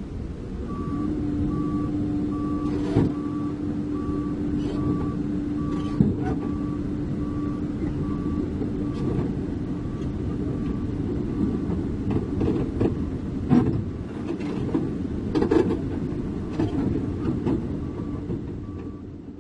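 Komatsu PC200 excavator's diesel engine running as the machine tracks down off a truck's steel deck, with its travel alarm beeping about twice a second. Steel tracks clank sharply against the deck several times.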